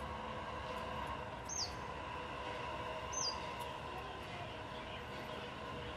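A bird's short, high whistled call that drops in pitch, heard twice about a second and a half apart, over a steady low background hum.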